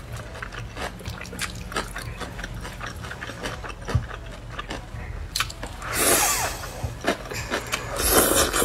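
Close-miked eating of cold wide noodles (liangpi in sesame sauce): wet chewing with many sharp mouth clicks, then two louder slurps of noodles, about six seconds in and near the end.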